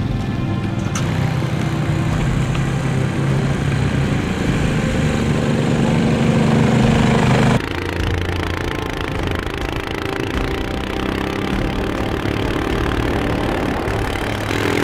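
Motor vehicle engine running steadily, its pitch climbing a little before the sound changes abruptly about halfway through and the engine carries on slightly quieter.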